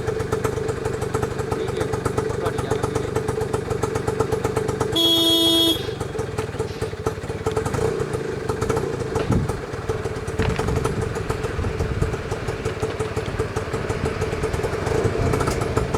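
A vehicle engine running steadily, with a single horn honk lasting under a second about five seconds in.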